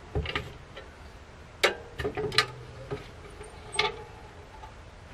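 A scattering of sharp clicks and knocks at irregular intervals, the loudest about one and a half seconds in, some with a brief ring.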